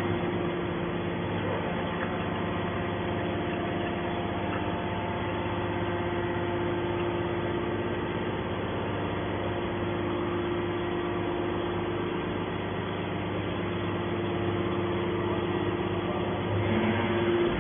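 Hydraulic scrap metal baler running, a steady machine drone with a constant hum and no pauses.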